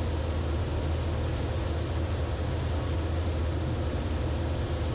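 Steady drone of the Zenith CH 650 light sport aircraft's engine and propeller heard in the cockpit during flight.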